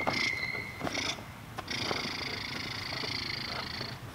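German Shepherd puppy whining high-pitched as it grips and tugs a toy: a couple of short whines, then one long held whine from about two seconds in until near the end.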